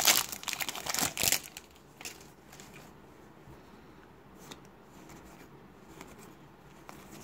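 Foil trading-card pack wrapper crinkling as it is torn and pulled off a stack of cards, loud for about the first second and a half. After that come quieter rustles and a few light ticks as the cards are handled.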